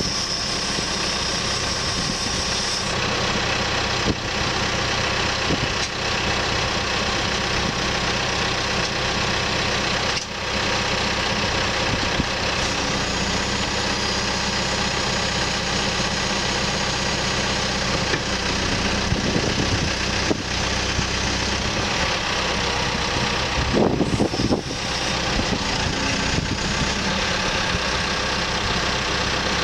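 CAT 430E backhoe loader's diesel engine running steadily while warming up, with a brief louder patch near the end.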